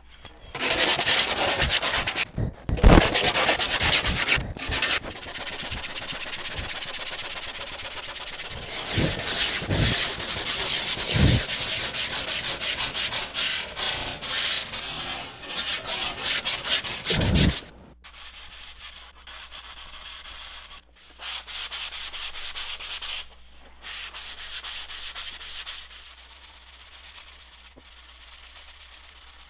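Hand sanding of a wooden kayak paddle's loom with a strip of sandpaper pulled back and forth, a fast, even rubbing stroke. The rubbing is loud for the first two-thirds and quieter after that.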